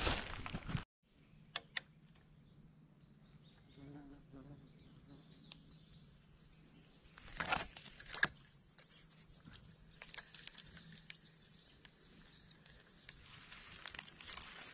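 Rustling steps through brush that cut off suddenly within the first second. After that, faint outdoor quiet with a thin steady high drone, two sharp clicks, and a few brief rustles.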